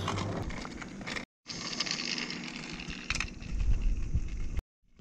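Battery-powered Trackmaster toy train running on plastic track: a motor whir with a busy rattle of wheels and plastic, and a heavier rumble near the end. The sound drops out to silence twice for a moment.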